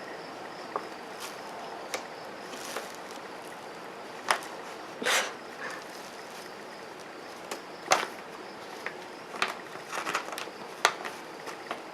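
Scattered short rustles and taps from handling a bag of dried catnip and pouring it into a yarn-stuffed sock, a few seconds apart, with one slightly longer rustle about five seconds in.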